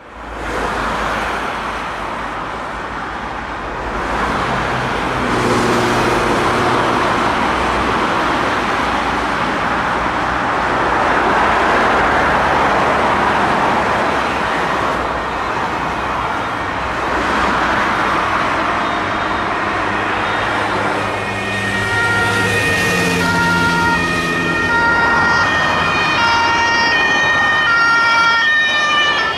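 Fire brigade vehicles driving past in traffic, with a steady roar of engines and tyres. From about two-thirds of the way in, a two-tone siren sounds clearly, stepping evenly back and forth between its two pitches.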